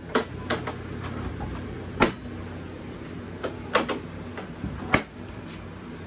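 Irregular sharp knocks and clacks of hard objects being handled, about eight in six seconds, the loudest about two seconds in and again near five seconds, over a steady low hum.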